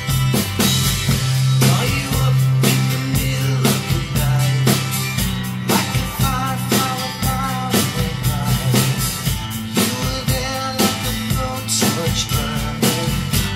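Acoustic drum kit, snare and cymbals struck with sticks in a steady rock beat, played along to a rock song recording with bass, guitar and singing.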